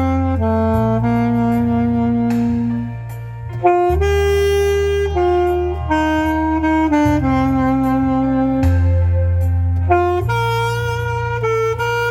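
Saxophone playing a slow melody of long held notes over an accompaniment with a steady bass line.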